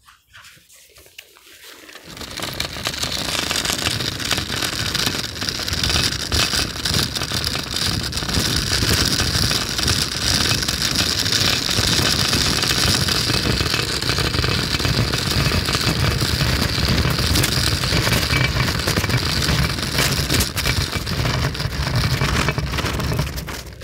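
A train passing close by on the line beside the path: a loud, steady rushing rumble that builds over the first few seconds and drops away near the end.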